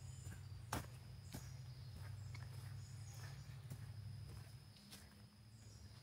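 Faint footsteps of a hiker on a woodland trail. There is a sharp crack a little under a second in, the loudest sound here, and several lighter ticks after it, over a steady low rumble that fades near the end.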